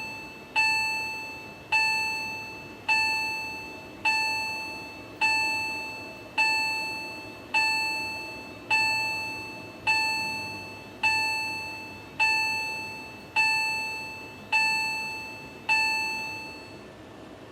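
Fire alarm signal under test, sounding a repeating bell-like chime: single strikes about once a second, each ringing out and fading before the next. The strikes stop near the end, leaving a steady hiss.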